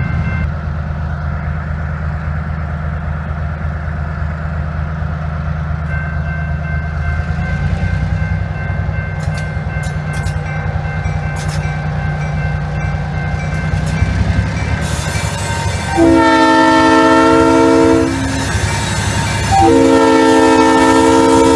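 Non-turbocharged EMD 645 diesel of an EMD switcher locomotive running steadily as it approaches with a freight train, growing a little louder. Near the end its Leslie three-chime air horn sounds twice: a blast of about two seconds, then after a short gap a second blast that is still sounding.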